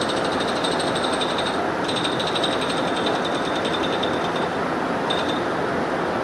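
Rapid mechanical hammering, a fast high-pitched rattle that stops briefly about two seconds in, resumes, then tails off near the end with one short final burst, over a steady rushing background.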